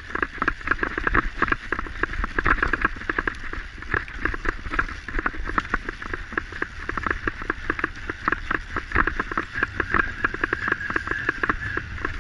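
A mountain bike being pulled fast over a rough forest dirt trail, rattling and clattering continuously over roots and bumps, with low rumble on the microphone.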